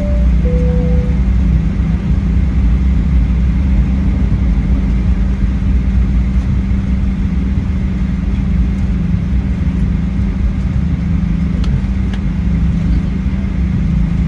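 Steady rumble of a Boeing 737-800's CFM56 jet engines and airflow heard inside the passenger cabin. A two-note high-low cabin chime sounds at the start, its lower note ending about a second in.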